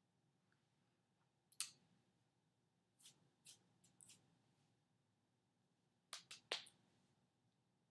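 Near silence with a few soft, sharp clicks and taps made by a person signing in sign language, including a quick cluster of three near the end.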